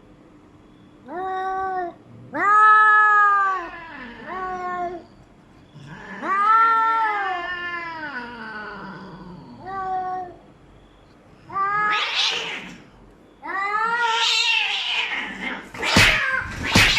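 Two tomcats caterwauling at each other in a territorial standoff: a series of long, drawn-out yowls that rise and fall in pitch. Toward the end the yowls turn harsher and noisier, and sharp cracks break in as the fight flares.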